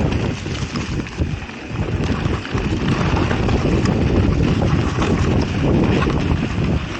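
Wind buffeting a GoPro's microphone on a mountain bike riding down a dirt trail, with the tyres running over the ground and the bike rattling and knocking over bumps.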